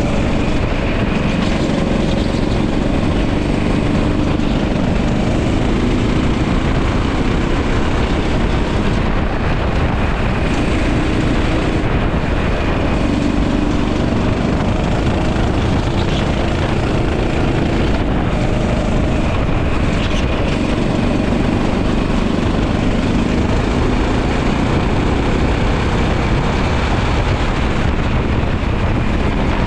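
Go-kart engine running hard on track, its note rising and falling as the revs change, over a dense rush of noise.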